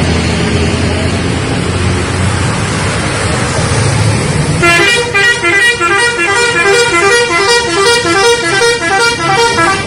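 A bus engine runs with a low rumble. About halfway through, an Indonesian 'telolet' multi-tone bus horn starts playing a fast melodic jingle of quickly alternating stepped notes, and it plays on almost to the end.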